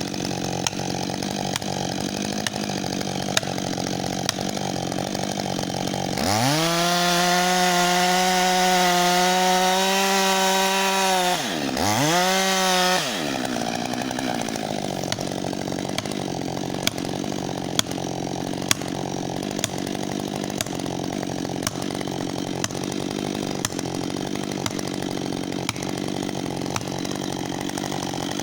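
Husqvarna 562 XP two-stroke chainsaw idling, then revved up to full throttle for about five seconds, dipping briefly and revved again, before dropping back to idle for the rest.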